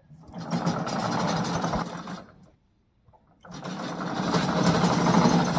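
Electric track drive of a remote-controlled crawler mower, 48 V brushless motors through worm-gear reducers, whirring in two bursts about a second apart as the machine is driven from the remote.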